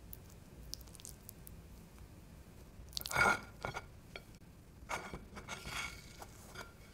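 Crisp pan-fried mini pizzas crackling and crunching as fingers handle them on a ceramic plate. One short loud crunch comes about three seconds in, and a softer run of crackles follows around five to six seconds.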